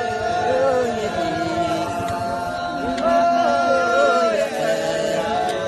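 Several Wodaabe men chanting together, one voice holding a long steady note while other voices slide up and down beneath it.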